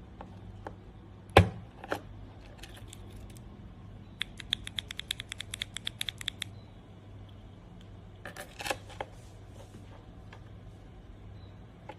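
Gateron Ink Black v2 linear keyboard switch clicking as it is handled and pressed: one loud click, a few scattered clicks, then a fast even run of about twenty clicks over two seconds or so.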